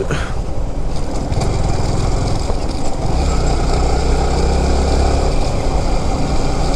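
Yamaha R15 single-cylinder sport motorcycle running at a steady cruise, its engine drone mixed with wind rushing over the helmet-mounted microphone; a deeper low rumble swells for about two seconds midway.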